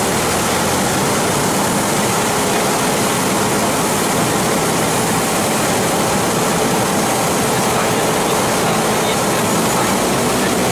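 Single-engine propeller plane's engine and propeller running steadily, heard from inside the cabin as a constant drone with rushing air noise.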